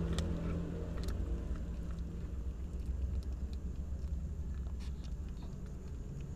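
Two kittens chewing and crunching pieces of fish, with scattered sharp clicks and smacks, over a steady low rumble.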